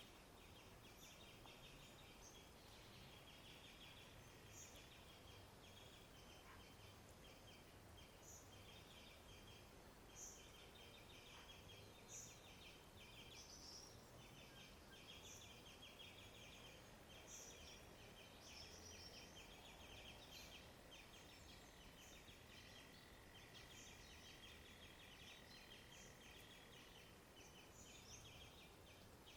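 Faint riverside soundscape: a rasping, pulsing trill repeated almost without pause, with short high bird chirps every second or two, over a low hiss of flowing river water.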